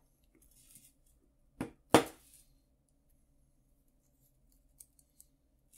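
Jewellery pliers clicking and knocking as a small metal bracelet chain is worked: two sharp clicks about a second and a half in, the second louder, then a few faint ticks near the end.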